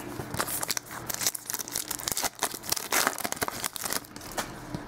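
Trading-card pack wrapper being torn open and crinkled while the cards are handled, an irregular run of rustles and crackles.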